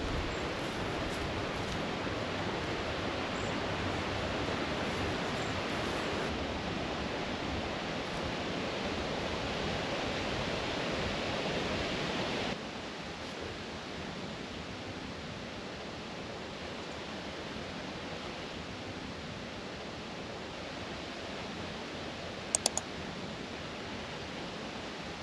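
Steady rushing outdoor background noise with no clear single source, dropping to a lower level about halfway through. A couple of short sharp clicks come near the end.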